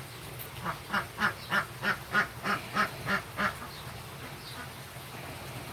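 An animal calling in a quick series of about ten short calls, roughly three a second, which stops partway through.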